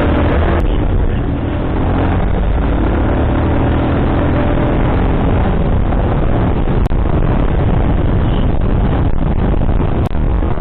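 Motorcycle riding along a road: steady engine running under heavy wind and road noise on the microphone.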